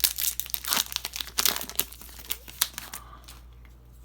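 Plastic wrapper of a hockey card pack crinkling and tearing as it is opened by hand: a rapid run of sharp crackles that dies down about three seconds in.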